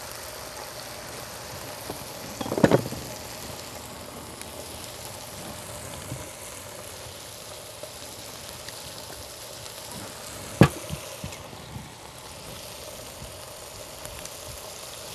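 Chicken thighs sizzling steadily as they sear skin side down on an electric griddle. A brief knock comes about two and a half seconds in, and a single sharp tap about ten and a half seconds in.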